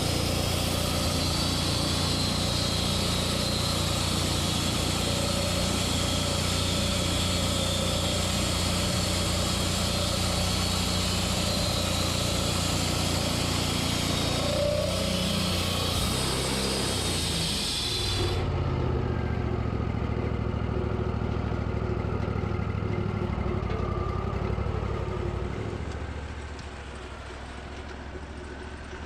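Engine running steadily under a high hissing noise that cuts off suddenly about two-thirds of the way through; near the end the engine drops to a lower, quieter run.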